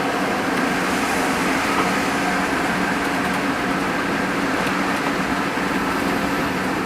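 Hino RN285 bus's six-cylinder turbo-diesel engine running steadily, heard from inside the bus as an even, unchanging hum.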